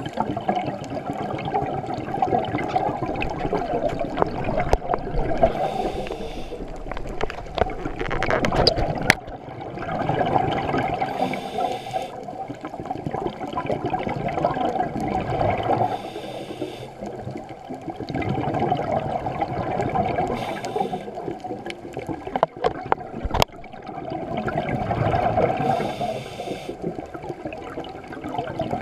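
Scuba diver breathing through a regulator, muffled through the camera's waterproof housing: a short hissing inhale about every five seconds and bubbly, gurgling exhales between them. There are a few sharp clicks.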